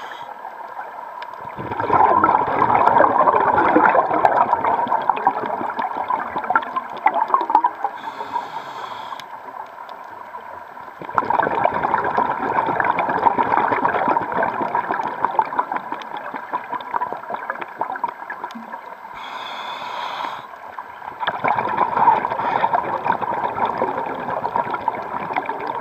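Scuba breathing through a regulator underwater: a short hiss of inhaling, then several seconds of bubbling exhaust, repeating about every ten seconds, three exhales in all.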